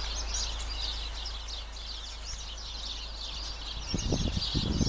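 Many small birds chirping and twittering at once in a dense, continuous chorus. About four seconds in, a low, irregular rumble starts on the microphone.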